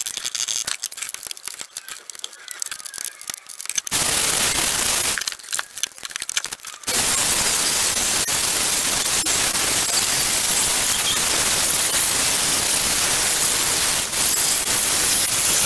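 Small angle grinder with a sanding disc grinding rust and underseal off a car's steel floor pan: a short burst about four seconds in, then steady grinding from about seven seconds on. Before that, irregular scraping and crackling on the metal.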